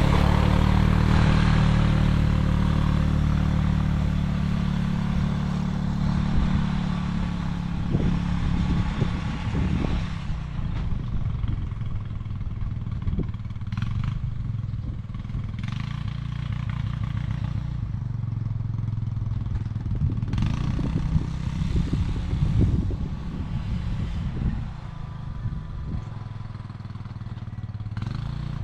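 ATV engine running steadily, loudest at first and gradually easing off, with scattered clattering knocks.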